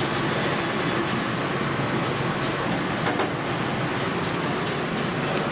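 Gas burners of a pizza deck oven burning with a steady rushing noise.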